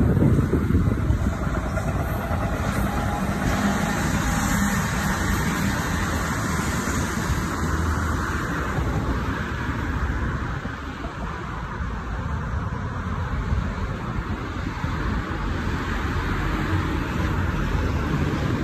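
Steady background noise of city road traffic.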